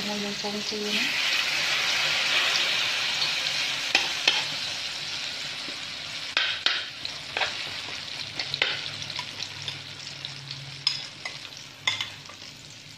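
Cha-om leaf shoots sizzling in hot oil in a metal wok, stirred with a spoon that clicks and scrapes against the pan several times. The sizzle slowly dies down.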